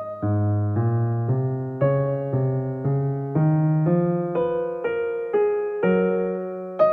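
Background music: an electric piano playing a slow melody, one note struck about every half second, each ringing and fading.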